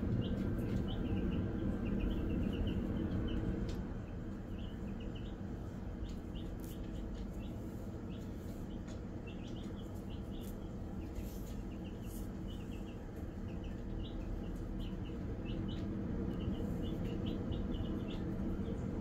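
Easter Egger chicks peeping: many short, high peeps, scattered and frequent, over a steady low hum.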